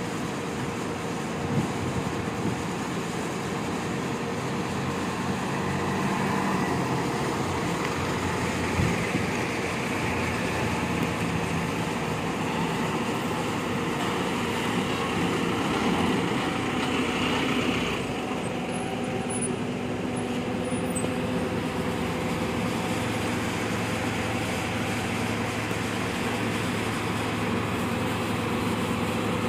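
A coach's diesel engine running as the bus moves, with traffic noise around it. About two-thirds of the way through the sound changes abruptly to a steadier, even engine hum close by, as of a bus idling.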